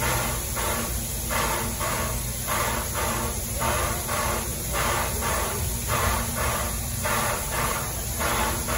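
Red steam locomotive standing at the station, hissing steam steadily with rhythmic pulses about twice a second over a low rumble.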